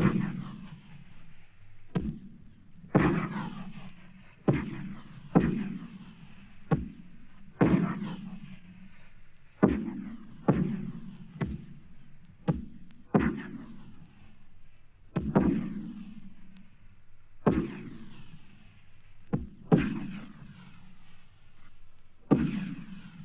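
Battle sound effect: a string of single sharp shots or blasts, irregularly spaced about one every second or two, each followed by an echoing tail.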